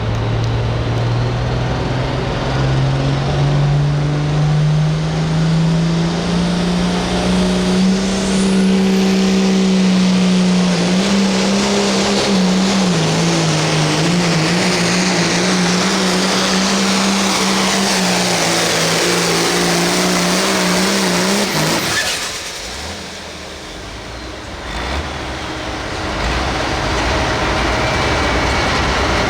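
Hot farm class pulling tractor's engine at full throttle on a pull: the revs climb steadily for several seconds, hold high with slight wavering as it drags the sled, then cut off suddenly about three-quarters of the way through. A quieter lull follows before engine sound picks up again.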